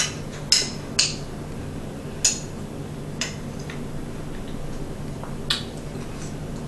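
Metal fork clinking and scraping against a ceramic plate while cutting a soft bread pudding: about six short, sharp clinks, three of them close together at the start, over a steady low hum.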